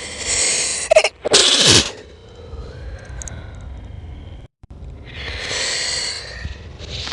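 A person's natural sneeze, slowed down: a drawn-out breathy in-breath, a sharp catch, then the sneeze a little over a second in, its voice falling in pitch. A second long in-breath builds near the end as the next sneeze winds up.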